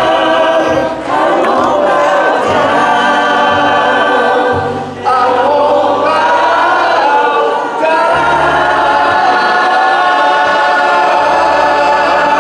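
A choir singing held notes in long phrases, with short breaths between phrases about a second in, around five seconds and near eight seconds.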